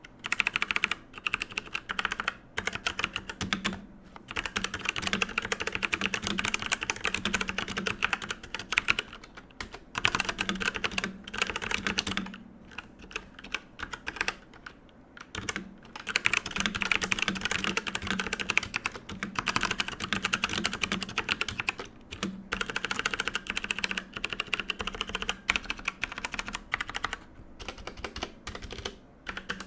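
Typing on a Redragon K550 Yama mechanical keyboard: rapid, dense key clicks in runs of a few seconds, broken by short pauses and one longer pause about halfway through.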